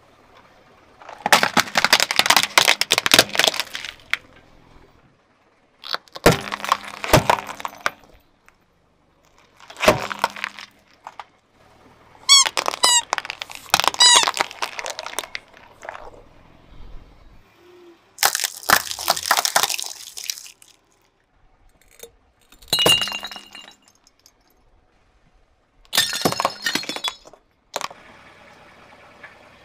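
A car tyre rolling over and crushing plastic and rubber toys: about seven separate bursts of crunching, cracking and popping with short pauses between them. Around the middle, a run of short high squeaks as squeaky spiky rubber balls are squashed under the tyre.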